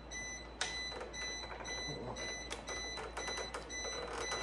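Powder-coating oven's electronic timer alarm sounding, a high pulsing tone, which signals that the cure cycle for the axles is done. A few light clicks from parts being handled are heard along with it.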